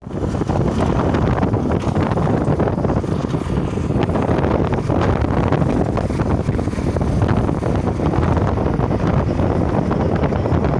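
Loud, steady wind rumble on the microphone of a moving vehicle, with road noise underneath.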